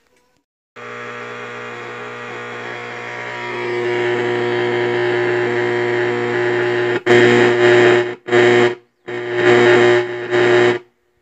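Behringer Xenyx 1202FX mixer's faulty output noise, a loud buzzing hiss with a hum running under it. It swells over the first few seconds, then cuts in and out several times near the end. The noise is the fault caused by the bad 7812/7912 power-supply regulators giving unequal positive and negative supply voltages.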